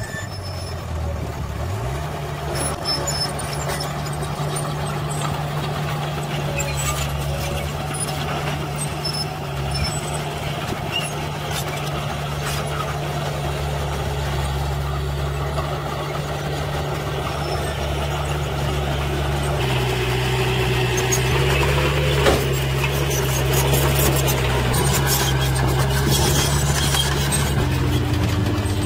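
Diesel engines of a small dump truck and a Komatsu crawler dozer running, held up at working revs while the truck tips its load. The engine note steps up about two seconds in and shifts a few more times, with one sharp knock about two-thirds of the way through.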